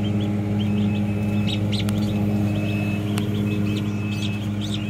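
Newly hatched ducklings peeping in many short high chirps over a steady low machine hum from the incubator.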